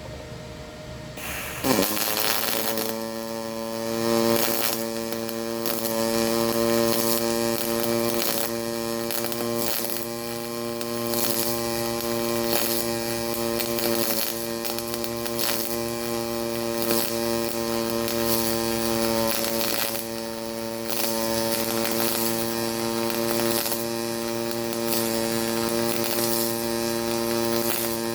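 HTP Pro Pulse MIG welder arc in pulse mode: a steady buzz at one fixed pitch with a crackling spatter, starting about a second and a half in.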